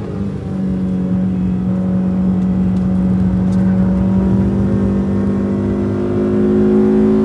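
Renault Twingo RS's 1.6-litre four-cylinder engine pulling hard at high revs. The pitch holds nearly steady and then rises slowly, getting louder toward the end.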